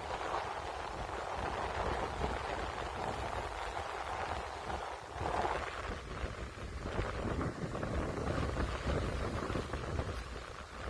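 Strong wind buffeting the microphone: a steady rumbling rush with no clear separate events.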